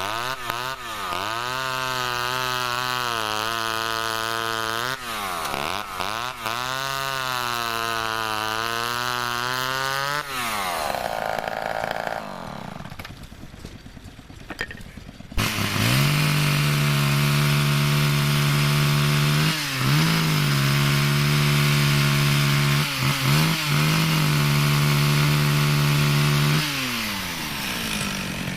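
Vintage two-stroke chainsaws running. For the first ten seconds one is revved up and down several times. After an abrupt change about 15 seconds in, a saw runs at high speed for about eleven seconds with a few brief dips, then drops back near the end.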